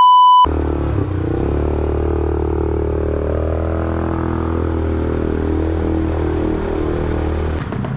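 A short beep at the very start, then a 200cc ATV engine running steadily at a low speed, its pitch wavering only slightly before it eases off near the end.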